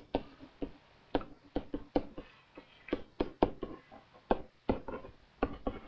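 A pen tapping and knocking against an interactive whiteboard while handwriting a chemical equation: a string of short, irregular taps, a few each second.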